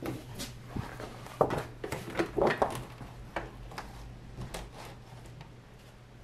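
A plastic cutting mat being handled and set into the front of a Cricut cutting machine: a run of light knocks and clicks, loudest about a second and a half to three seconds in, then dying away.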